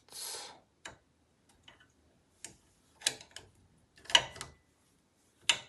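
Scattered sharp metallic clicks and ticks, about seven, loudest near the end, from a small hand tool and metal parts being handled while the extruder is being unscrewed from the 3D printer's frame. A short hiss comes at the very start.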